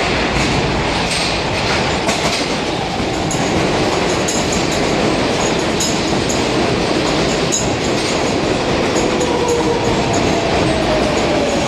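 R142A subway train pulling into the station alongside the platform: a steady rush of train noise with scattered clicks and clacks of the wheels over the rails. Near the end a whine falls in pitch as the train slows.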